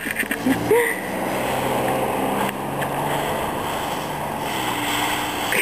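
A dog rooting through a pile of dry fallen leaves, making a steady, continuous rustling and crunching, with a brief pitched vocal sound near the start.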